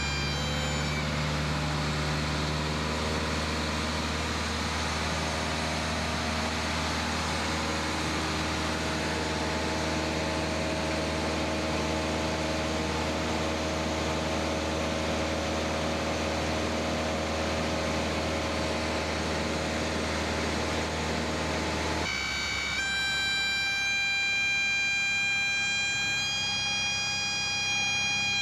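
Engine and propeller of a single-engine Cessna droning steadily, heard inside the cabin in flight. About 22 s in, the sound changes abruptly to a weaker engine note with a steady high-pitched tone over it.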